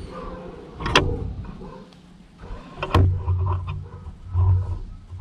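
Clicks and knocks of hands and tools working on the parts and wiring of a JBL Xtreme 1 Bluetooth speaker being taken apart: a sharp one about a second in and another near three seconds, followed by short stretches of low hum.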